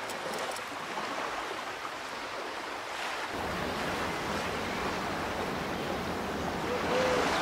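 Sea surf: a steady rush of waves breaking and washing in. It grows fuller and deeper about three seconds in and swells slightly toward the end.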